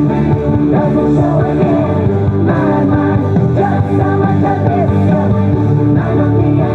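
Upbeat song playing continuously, a sung melody over a steady beat and bass, accompanying a dance.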